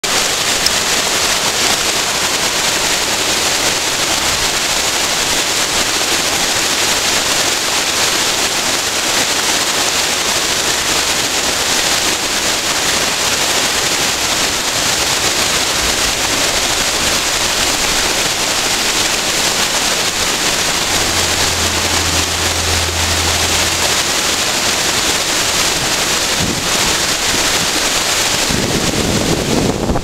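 River water rushing over rocks in shallow white-water rapids below a dam: a steady, loud rush.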